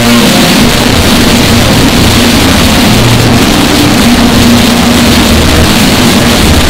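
Deep-fried bagpipe music: bagpipes distorted and clipped into a constant noise at full loudness, with a few held notes of the tune showing faintly through and changing pitch now and then.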